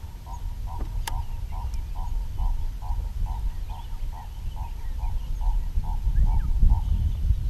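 Low wind rumble on the microphone, with a regular series of short chirping notes, a little over two a second, that stop near the end. There is one sharp click about a second in.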